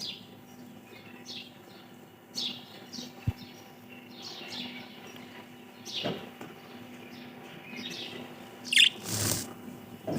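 Pet budgerigars chirping in many short high chirps. There is a low knock about a third of the way in and a brief loud rustle near the end.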